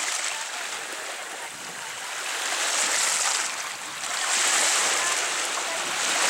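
Small waves washing over a stony shoreline, the wash swelling and fading every second or two.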